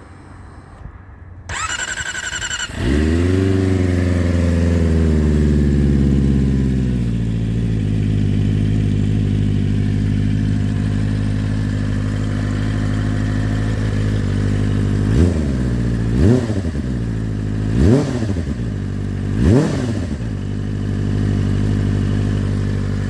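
Kawasaki ZX-25R's inline-four, breathing through an aftermarket full exhaust with an unbranded silencer fitted with only an end baffle, cranked on the electric starter for a little over a second, then catching. Its high idle falls and settles into a steady idle, then four short blips of the throttle about a second or two apart before it idles again.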